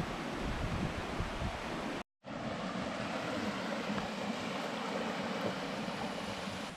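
Shallow rocky river rushing steadily over stones, a constant hiss of running water, with a brief gap of silence about two seconds in.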